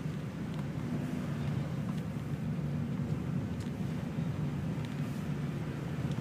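A steady low vehicle rumble that holds an even level and pitch.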